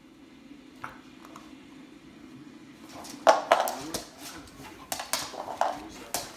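A hard dog treat clattering on a hardwood floor as a husky puppy paws and pounces at it, with its claws clicking on the boards: a string of sharp knocks and clacks starting about three seconds in.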